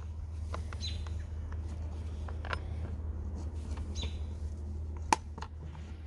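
Tubular socket wrench fitted and turned on a chainsaw's bar-mounting nut: faint scattered metal clicks, with one sharp click about five seconds in, over a steady low hum. A bird chirps faintly twice.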